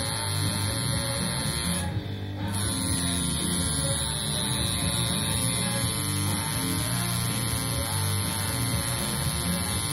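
Coil tattoo machine buzzing steadily while it runs, cutting out briefly about two seconds in and then starting again.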